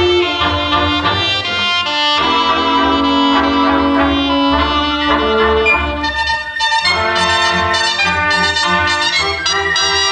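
A cobla playing a sardana: Catalan shawms (tibles and tenores), trumpets, trombone, fiscorns and double bass together, with held notes in the first half and more separate, shorter notes after about six seconds.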